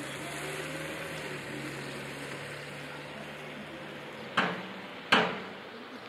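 Two sharp knocks about three quarters of a second apart, the second louder with a short ringing tail, over a low steady hum that fades out just before them.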